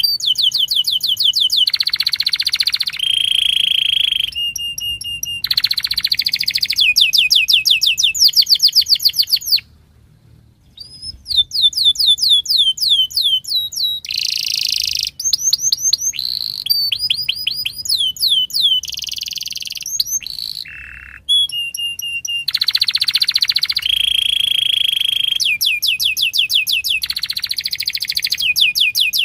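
Domestic canary singing a long, varied song of rapid trills of repeated notes, rolls and sliding whistles, with a brief break about ten seconds in.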